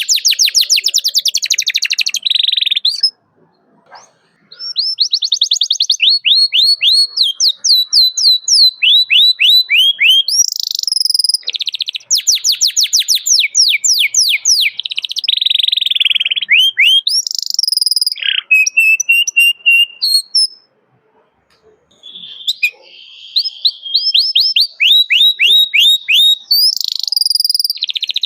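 Domestic canary singing: fast trills of repeated down-slurred chirps, changing from one phrase to the next, breaking off briefly about three seconds in and again about twenty seconds in.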